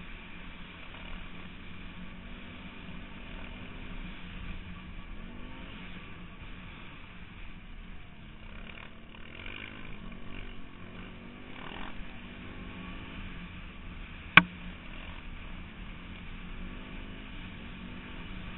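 Off-road motorbike engine running while riding a snowy trail, its pitch rising and falling with the throttle, over a rumble of rough-ground noise. One sharp knock about fourteen seconds in.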